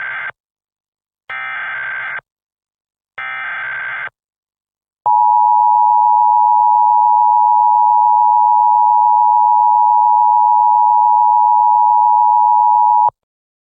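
Emergency Alert System header: three bursts of SAME digital data, each just under a second long and about two seconds apart. Then comes the two-tone EAS attention signal (853 and 960 Hz), a louder steady tone held for about eight seconds that cuts off suddenly, announcing a tornado emergency alert.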